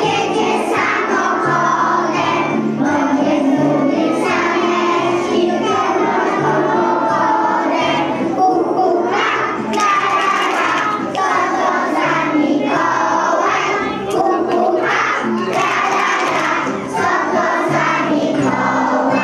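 A group of preschool children singing a song together, accompanied by music with a steady bass line.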